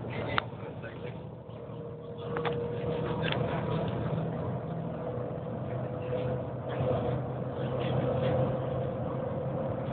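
Cabin noise inside the Shanghai Maglev train travelling at speed: a steady rushing hum with a steady tone running through it. Two brief clicks, one about half a second in and another about two seconds later.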